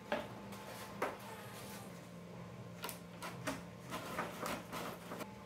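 Light clicks and taps of 3D-printed plastic as a model plane's removable rudder and elevator assembly is handled and fitted: two sharper clicks within the first second or so, then a run of softer ticks.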